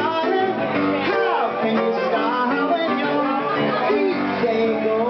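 A woman singing an upbeat pop song live, accompanied by a grand piano.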